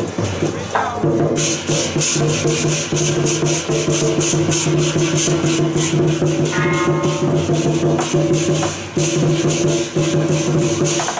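Lion-dance percussion band of drum, gong and cymbals playing a fast, steady beat. The rapid cymbal-like strikes come in about a second in, over a steady low ring.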